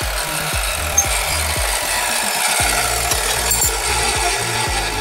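Abrasive chop saw running, its cut-off disc grinding through a thin metal strip with a steady hiss. Background music with a regular beat plays underneath.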